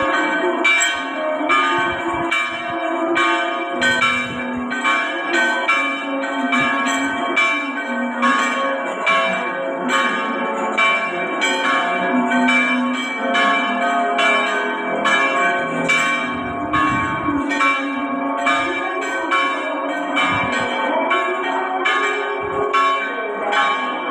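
Church bells ringing in a steady run of strikes, about two or three a second, each strike ringing on into the next.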